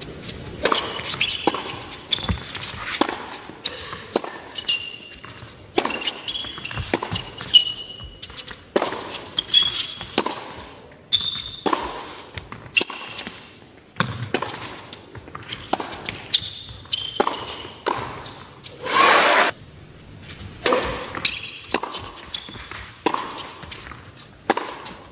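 Tennis rally on an indoor hard court: racket strikes on the ball ring out back and forth about once a second, with short high-pitched sneaker squeaks on the court between shots. One longer, louder noise comes about three-quarters of the way through.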